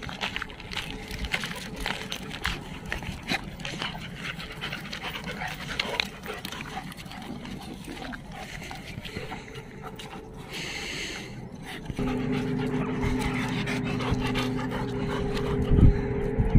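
Several dogs panting as they walk, with scuffs and small ticks over gravel. About twelve seconds in, a steady low hum comes in under the panting, and there is a thump near the end.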